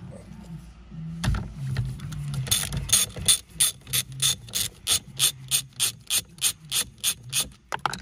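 A ratchet wrench with a 17 mm socket clicking steadily, about three clicks a second, as it is worked back and forth to undo the steering wheel's centre nut. There is a single knock just over a second in.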